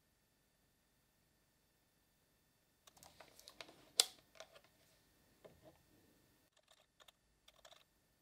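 Faint, irregular clicks and taps from a small screwdriver and multimeter probes being handled at a circuit board while a step-down module's voltage adjuster is turned. They begin about three seconds in, with one sharper click about a second later.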